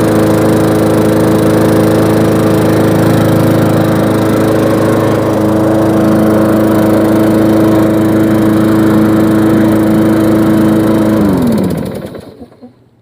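Old lawn mower's small engine running steadily at speed on its first run of the year, after being started with a drill because its recoil starter is broken. About eleven seconds in it is shut off, and its pitch falls as it winds down to a stop.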